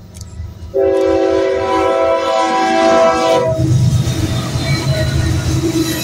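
A freight train's lead diesel locomotive sounds its multi-note air horn in one long blast of almost three seconds. About three and a half seconds in, the horn stops and the locomotives' diesel engines run loudly as they pass close by.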